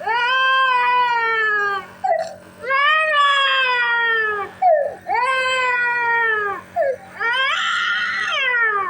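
Young child crying hard: four long wails, each falling in pitch, with short gasping in-breaths between them. Under them runs the steady low hum of a compressor nebuliser.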